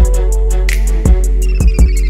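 Background music with a steady drum beat over a deep bass and held notes.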